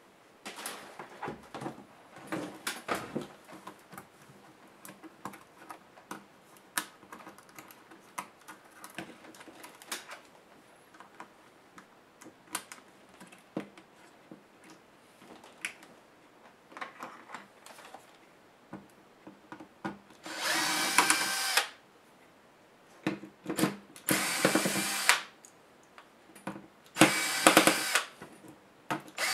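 Light clicks and taps of small hand screwdrivers on a laptop's plastic case, then a cordless electric screwdriver running in three short bursts of about a second and a half each, backing screws out of the laptop's frame.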